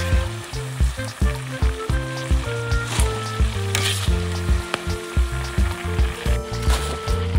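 Whole prawns deep-frying in a large wok of hot oil: a steady sizzle of bubbling oil, with the metal spatula and wire strainer stirring and scraping through it.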